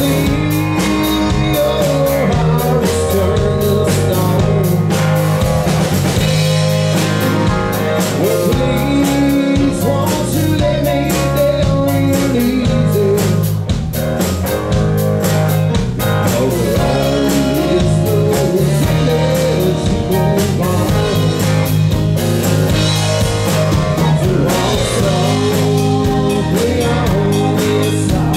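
Live band playing loudly: a woman sings lead over electric guitars and a drum kit.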